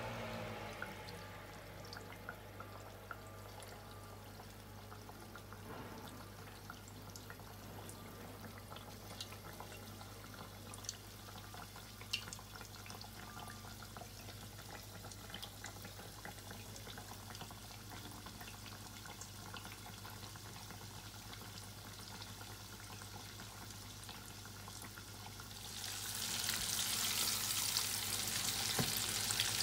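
Floured chicken pieces deep-frying in hot oil in a stainless steel pot: faint bubbling with scattered small pops over a steady low hum, then, near the end, a much louder sizzling hiss as the frying turns vigorous.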